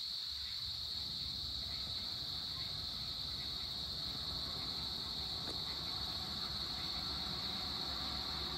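Evening insect chorus, a steady, unbroken high-pitched drone, with a low rumble underneath that grows louder in the second half.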